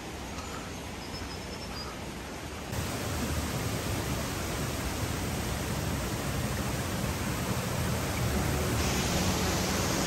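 Steady rushing of Guide Falls and the rocky river below it. A quieter, even hiss for the first few seconds, then the water noise jumps louder about three seconds in and grows brighter near the end.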